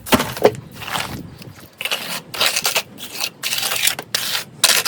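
A hand tool scraping and rubbing wet pool patch compound into a rough pebble pool surface, in quick repeated strokes about two or three a second.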